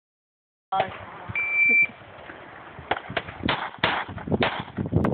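A shot timer gives one short start beep, then a pistol fires a quick string of several shots beginning about a second and a half later.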